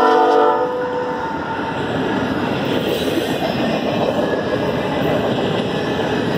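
A freight locomotive's horn chord cuts off about half a second in. Then a double-stack container train rolls past close by with the steady noise of steel wheels on rail.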